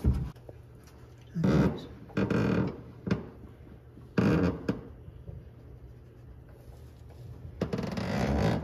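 A handful of short scraping and clunking bursts, metal on metal, as a flathead V8 engine is twisted and shoved toward the transmission to seat it on its dowel pins. The longest burst comes near the end.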